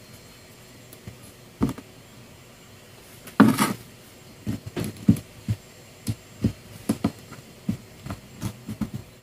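Light clicks and taps of a small screwdriver and screws working on a Tamiya .18 nitro model engine as the carburetor is screwed back on. There is one louder knock about three and a half seconds in, then scattered small clicks.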